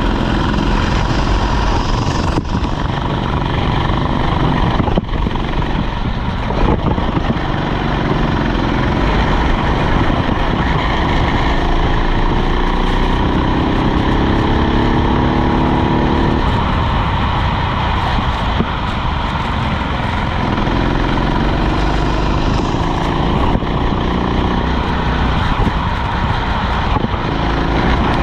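Rental kart engine running at race pace, its pitch climbing again and again as it accelerates out of corners, over constant wind and road noise. There are a few sharp knocks in the first seven seconds.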